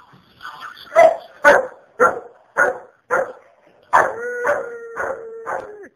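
Rottweiler barking in a rapid series, about two barks a second. For the last two seconds a long steady howl-like note is held under the barks.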